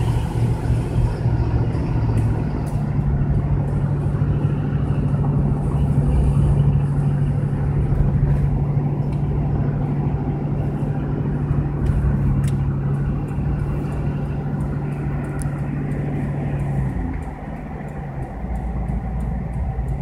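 Car running along a highway, heard from inside the cabin: a steady engine drone over tyre and road noise. The drone falls away about three-quarters of the way through and the noise gets quieter.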